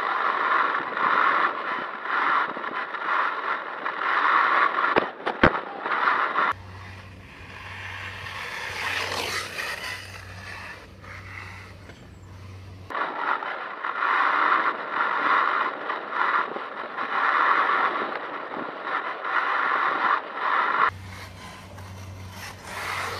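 HPI WR8 Flux brushless electric RC rally car driving over block paving, its wheels rattling and scraping on the stones, heard close up from a camera on the car, with two sharp knocks about five seconds in. In the middle stretch and near the end it is heard more faintly from further off, over a low steady hum.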